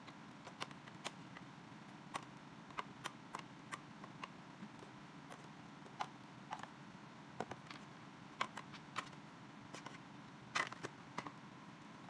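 Spoon clicking and scraping against black microwave cooking boxes as food is scooped from one box into the other: irregular light clicks, a few a second, with a couple of sharper knocks near the end.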